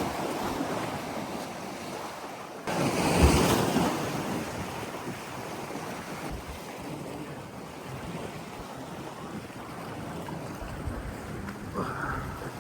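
Ocean surf washing on the beach with wind buffeting the microphone; a louder surge rises about three seconds in.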